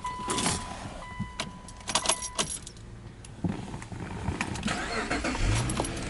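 Car key jangling and clicking in the ignition of a Subaru Legacy 3.0R, with a steady electronic warning chime for the first couple of seconds. Near the end a low rising whir begins as the key is turned to start the engine.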